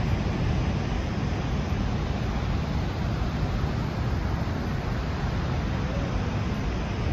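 Steady roar of Niagara Falls: an even, unbroken rushing of falling water, heaviest in the low range.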